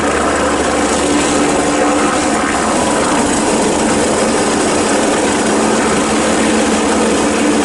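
Police Bo 105 helicopter hovering low: a steady, loud rush of twin-turbine and rotor noise with a steady low hum underneath.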